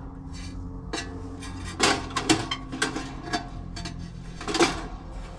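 Several sharp metal clinks and clanks, a second or so apart, as dryer parts are handled during disassembly.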